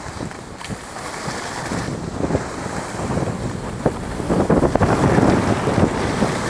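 Wind rushing over a moving camera's microphone, with the hiss and scrape of riding through snow, louder in the second half and broken by a few short knocks.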